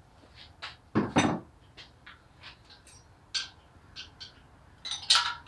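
Scattered metallic clinks and clicks of hand tools and engine parts being handled on the cylinder head of an air-cooled VW engine, with two louder clunks about a second in and another near the end.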